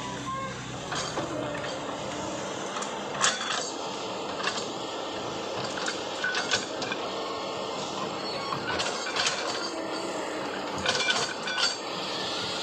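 Kobelco excavator at work: a steady run of engine and hydraulic noise, broken by scattered metallic clanks and knocks.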